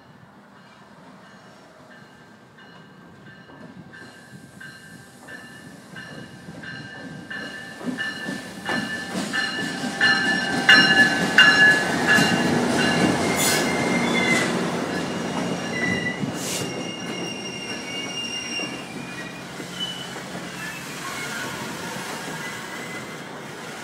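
Virginia Railway Express commuter train approaching and pulling past alongside the platform, with a steady high wheel squeal. The rumble grows louder until the locomotive goes by about ten to fourteen seconds in, with sharp clicks from the wheels. The passenger cars then keep rolling past, somewhat quieter.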